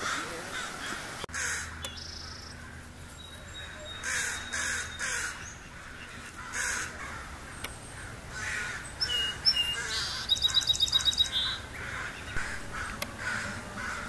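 American crows cawing repeatedly. About nine seconds in, a song sparrow sings: a couple of high notes, then a quick trill of about ten notes.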